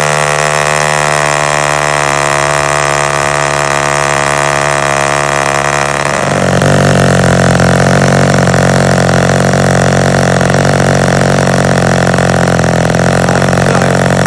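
Gerald Smith Skylark spark-ignition model aero engine running steadily with its propeller, freshly started. About six seconds in its note changes abruptly and it runs a little louder.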